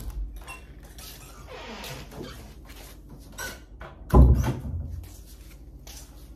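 Soft-soled suede slippers stepping on a wooden floor, with light scuffs and clicks and one loud low thump about four seconds in.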